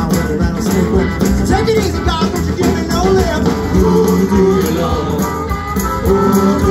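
Rock band playing live, heard from the crowd in front of the stage: electric guitars over a steady drum beat.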